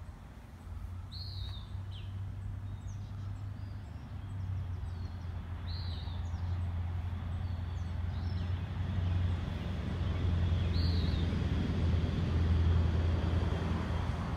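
Birds chirping in the trees: one short call repeated three times, a few seconds apart, with fainter chirps between. Under them runs a steady low rumble that grows louder.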